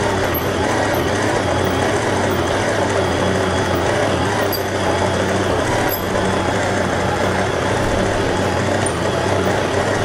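Stand mixer motor running steadily with a constant low hum while its dough hook kneads pizza dough in the steel bowl.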